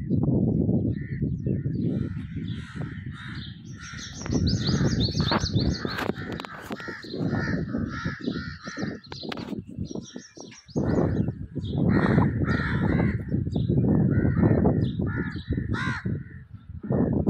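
Crows cawing repeatedly, mixed with the quicker chirps of smaller birds in the dawn chorus, busiest a few seconds in. Underneath runs a loud, uneven low rumble of wind on the microphone.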